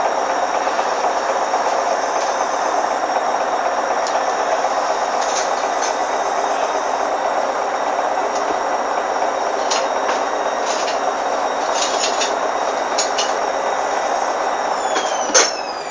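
Hoover Dynamic washing machine spinning, with a steady rush from the drum and a few light clicks. Near the end a sharp click comes, and the motor winds down with a falling whine.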